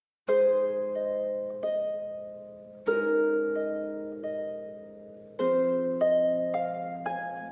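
Slow instrumental music starts about a quarter second in: a chord about every two and a half seconds, each ringing and fading away, with single notes between.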